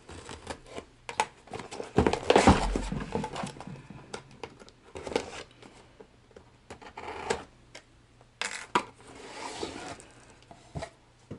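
Packing tape being cut and pulled off a cardboard shipping box, with irregular scratching, crinkling and tearing as the cardboard is handled, and a thump about two seconds in.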